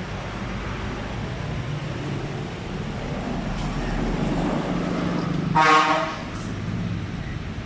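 KTC KMEC 15 screw air compressor running with a steady low hum that builds slightly. A short, loud tonal blast of about half a second sounds near the end.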